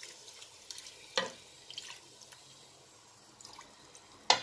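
Water poured from a glass bowl into an aluminium pressure cooker over cooking eggplant, dripping and splashing, with small ticks and two sharp knocks from the spoon and bowl. The louder knock comes near the end.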